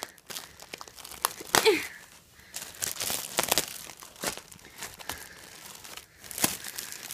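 Clear plastic bag crinkling and rustling as a plush toy is handled inside it, in uneven spells of sharp crackles.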